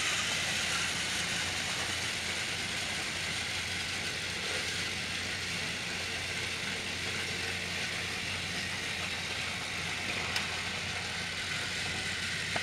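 Battery-powered TrackMaster toy train motors running steadily, their wheels whirring on the plastic track. A faint click comes about ten seconds in.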